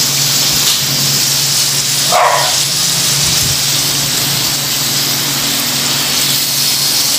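Meat sizzling on a Korean barbecue grill pan: a loud, steady frying hiss, with a steady low hum underneath.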